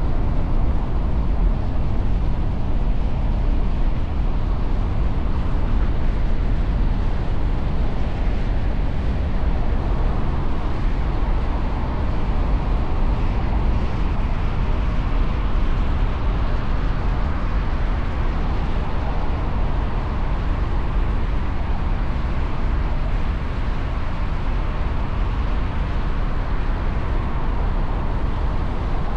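Steady city traffic noise: a dense low rumble of engines and tyres with no distinct horn blasts.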